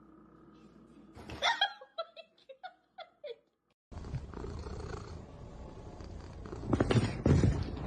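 A cat gives one loud meow, then a quick run of about six short, falling mews. After a sudden cut, a noisier stretch follows with a louder burst of sound near the end.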